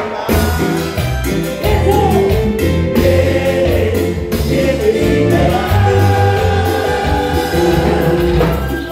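Live band music: male voices singing together over the band, with a moving bass line underneath and regular percussion strokes.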